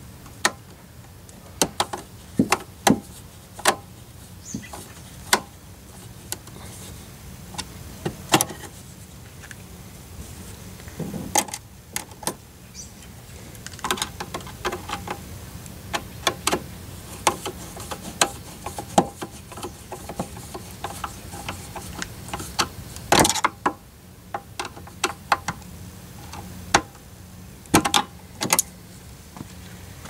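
Hand tools on the metal terminal nuts of a battery disconnect switch: irregular sharp clicks and taps of pliers and a screwdriver as the nuts are held and tightened. A louder clack comes about 23 seconds in.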